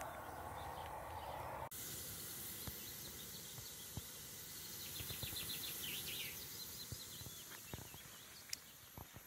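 Steady hiss of a portable gas camping stove's burner under a frying pan of flatbread. A short, rapid bird trill comes about five seconds in. A lower rushing noise in the first couple of seconds cuts off abruptly.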